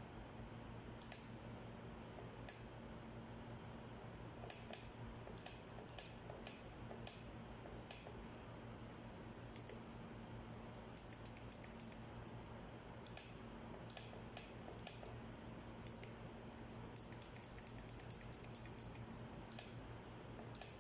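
Scattered light, sharp clicks, some coming in quick runs, over a faint steady hum.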